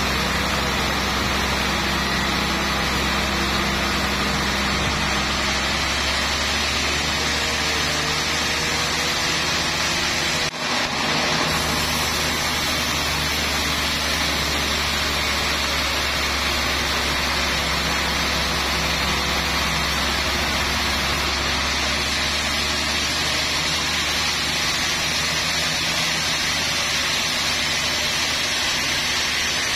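Sawmill band saw cutting lengthwise through a trembesi log: a steady, loud noise of the blade and its drive motor, with a low hum underneath. It drops out briefly about ten seconds in.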